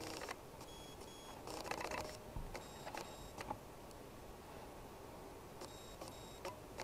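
Paper pages of a paperback book riffling and rustling as gloved hands flip through it, with scattered light clicks of handling. The loudest rustles come at the start and just before two seconds in. Brief faint high-pitched tones come and go alongside the clicks.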